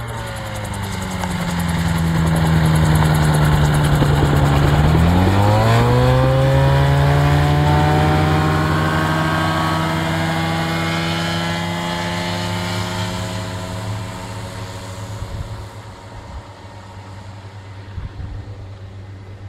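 Light gyroplane's engine and propeller running close by. The pitch falls early on, dips about five seconds in and then climbs steadily; the sound is loudest in the middle and fades away over the last few seconds.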